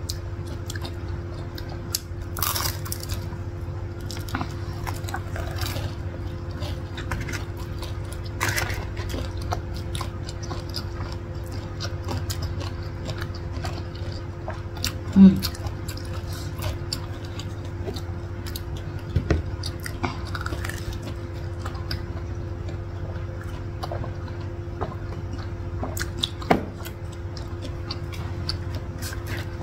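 Two people chewing and biting into crumb-coated corn dogs, with scattered short crunches and mouth clicks over a steady low hum.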